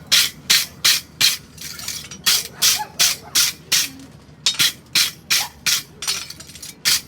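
Quick rhythmic scraping strokes of a hand tool on metal, about three a second, in runs with two short pauses, as the horseshoe is tidied up.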